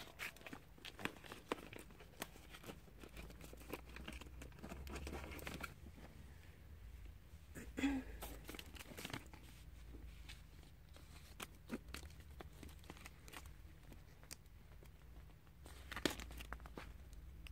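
Plastic packaging on hanging packs of weave hair crinkling and rustling as they are handled, in short spells with scattered clicks; the loudest rustles come about eight seconds in and again near the end.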